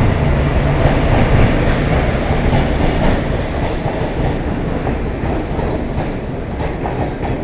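Amarkantak Superfast Express passenger train rolling into a station: a steady rumble of wheels on rails with rail-joint clicks, and a brief high wheel squeal about three seconds in. The sound eases slightly as the train slows on arrival.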